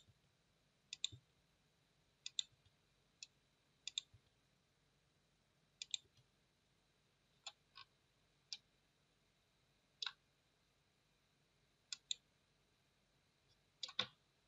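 Computer mouse buttons clicking now and then, single clicks and quick pairs, against near silence.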